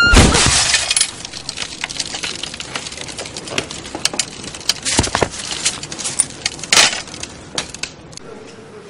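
A pane of glass smashed by a punch, with a loud crash and a second of crackling breakage. Scattered clinks and cracks of glass pieces follow for several seconds.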